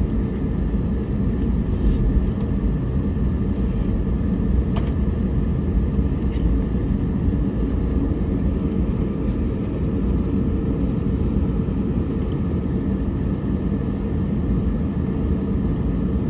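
Steady low rumble of a jet airliner's cabin as it taxis, its engines at low power, heard from inside the cabin, with a faint steady hum and a few faint ticks.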